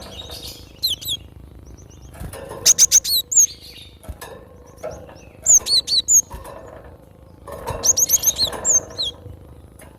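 Cinereous tit (gelatik batu) calling in four quick bursts of short, sharp high chirps, each note sweeping down in pitch, with pauses of a second or two between bursts.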